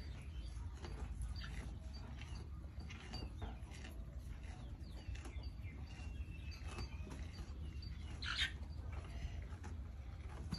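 A calf feeding with its muzzle in a woven plastic feed sack, making faint scattered rustles and clicks over a low steady rumble. A short, brighter chirp-like sound comes about eight seconds in.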